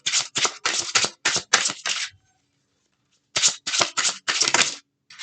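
A deck of tarot cards being shuffled by hand: quick rhythmic swishes of card on card, about four a second, in two runs with a pause of about a second between.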